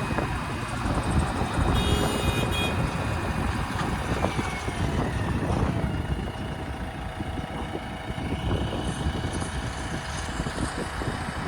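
Heavy diesel machinery running steadily: a JCB 3DX backhoe loader at work with a tractor beside it, loading a trolley with soil.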